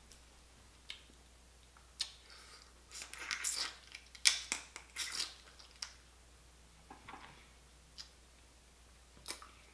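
Boiled blue crab shells being cracked and picked apart by hand, with the meat eaten: scattered sharp clicks and crackles and chewing, busiest about three to five seconds in.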